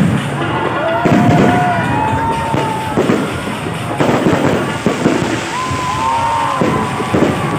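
Fireworks display: bangs and crackling bursts going off one after another, with several long whistling tones among them.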